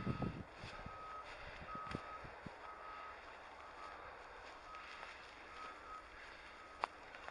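Electronic beeping: a short, mid-pitched single-tone beep repeating steadily about once a second, heard over a low rumble, with a few knocks near the start and a sharp click near the end.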